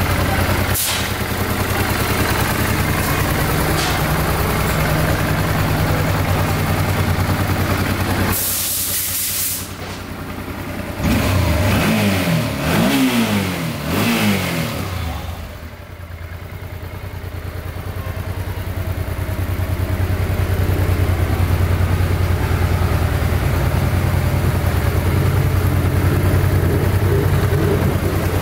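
Honda NT700V Deauville's 680 cc V-twin idling steadily, with the throttle blipped a few quick times about halfway through before it settles back to idle.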